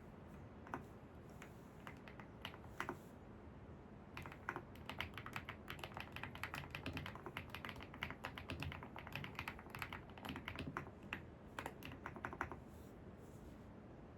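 Computer keyboard typing: a few scattered keystrokes, then a steady run of quick typing from about four seconds in that stops shortly before the end, over a faint steady background noise.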